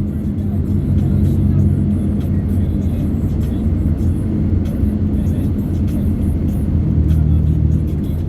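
Steady engine and road noise of a moving vehicle, with music playing along.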